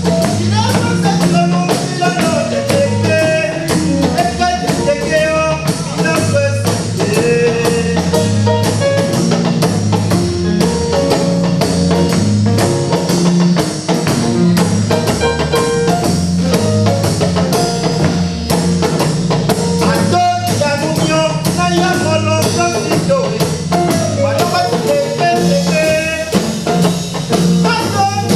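Band music with a steady drum beat, a moving bass line and a melodic line, possibly with singing.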